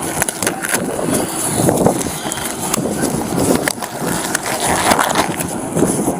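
Rustling and scraping of clothing against a body-worn camera's microphone during a pat-down search, with scattered clicks and knocks of handling.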